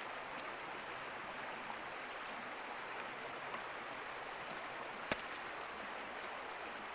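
Steady rush of flowing stream water with a thin, steady high whine over it, and two sharp clicks about half a second apart a little past the middle as a machete works on a durian husk.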